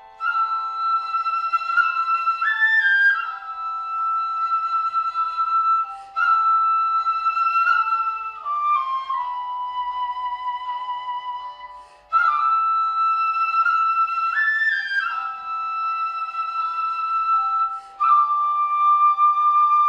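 Shinobue, the Japanese bamboo transverse flute, playing a high-pitched melody in phrases of about six seconds, each starting sharply. The opening phrase, with its quick rise near its end, comes back about halfway through.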